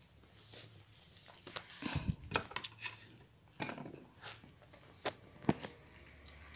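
A Persian cat eating canned sardine wet food from a stainless steel bowl: irregular clinks and knocks against the metal bowl as it eats, a few louder ones near the middle and near the end.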